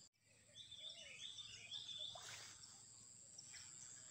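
Faint riverside nature ambience: a steady high-pitched insect drone with scattered bird chirps, most of them between about half a second and two seconds in.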